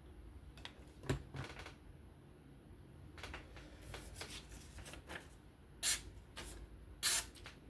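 Sharp knife edge slicing through paper to test its sharpness: a few soft rustles, then several short, crisp swishes in the second half.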